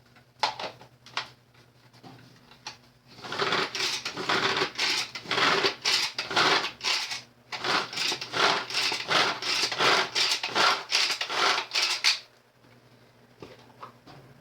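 Cranberries being chopped in a small kitchen chopper. A few light clicks come first, then about nine seconds of rapid, irregular clattering chopping strokes that stop suddenly.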